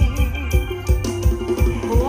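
Loud music played through MD18 DIY subwoofer speaker cabinets: a heavy, regular bass beat under an electronic keyboard melody with sliding notes.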